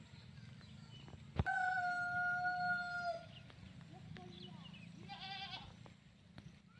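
Two long animal calls. A loud, steady one starts with a click about a second and a half in and lasts nearly two seconds; a shorter, wavering one comes near the end. Faint short chirps and a low steady hum run underneath.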